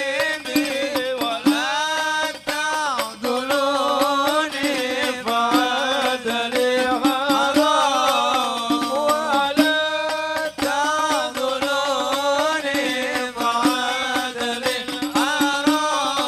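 Men singing an Arabic sholawat, a devotional song in praise of the Prophet, into microphones through a sound system, with melismatic, wavering melody lines over a steady low accompanying note and light frame-drum beats.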